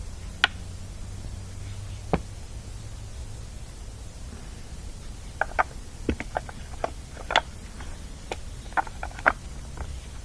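Irregular light clicks and taps of small parts and tools being handled on a chainsaw during a spark-plug check, with a few clustered together in the second half.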